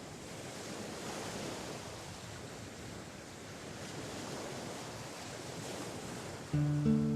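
Sea waves washing on a shore, a steady rushing that gently swells and eases. Music comes in near the end.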